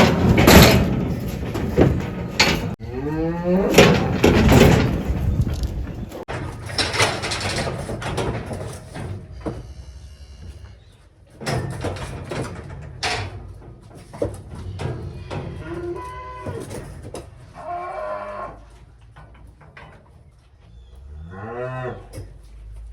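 Cattle mooing and bellowing several times while being worked through a livestock chute, with a last drawn-out moo near the end. Loud knocks and rattles mix with the calls in the first few seconds.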